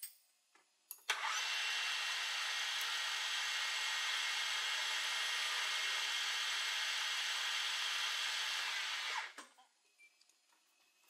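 Metal lathe running with a short piece of steel allthread spinning in its three-jaw chuck as the cutting tool faces the end to length: a steady, hissing whir. It switches on abruptly after a click about a second in and winds down quickly near the end.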